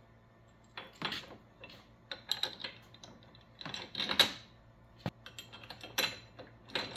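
Small metal bolts and nuts clicking and rattling as they are handled by hand at a UTV's cab-frame mirror mount: scattered light clicks and rustles, with one sharp click about five seconds in.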